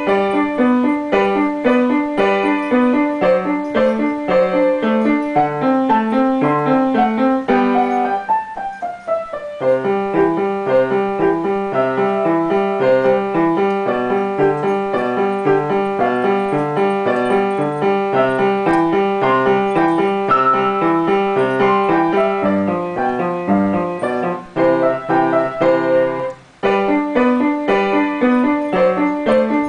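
Upright piano played by a child, a continuous stream of notes. About eight seconds in, a quick descending run, and near the end a brief break before the playing picks up again.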